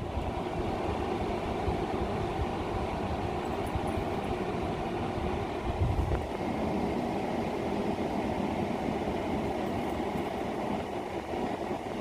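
5,000 BTU air conditioner running steadily, its compressor and fan powered by an inverter off the van's batteries, with a short low bump about six seconds in.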